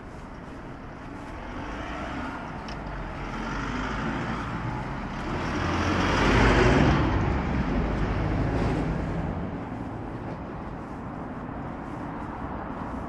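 Road traffic: a motor vehicle passes close by, its noise swelling to a peak about six to seven seconds in and then fading, over a steady background of traffic.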